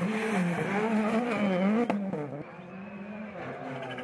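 Rally car engine at high revs, its pitch rising and falling, with a single sharp crack about two seconds in. After that the engine noise drops to a quieter, steadier level.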